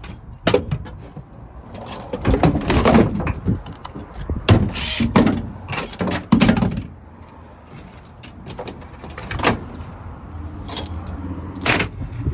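Loose items in the back of a truck clunking and rattling in irregular bursts, over a low steady hum.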